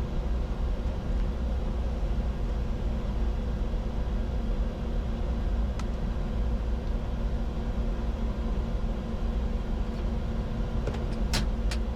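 Steady cockpit noise of a Bombardier Challenger 605 business jet in flight on approach: a dense rush of airflow and engine noise with a faint steady hum. There is a single click about six seconds in and two clicks near the end.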